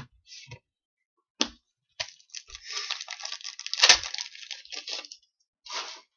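Trading-card pack wrapper crinkling and crackling as it is handled, with a sharp snap about four seconds in.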